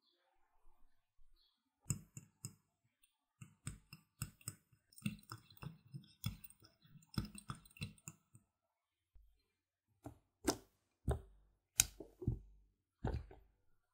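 A small wire whisk clicking rapidly against a ceramic jug as matcha is mixed into oil, then about five separate soft thuds and knocks as lumps of mung bean paste go into a glass food-chopper bowl.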